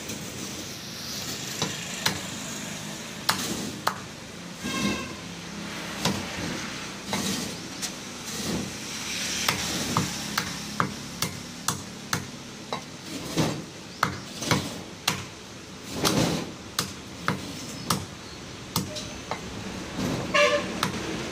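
Cleaver chopping chicken pieces on a wooden stump chopping block: a long series of sharp knocks at an irregular pace, closer together in places, over a steady background hum.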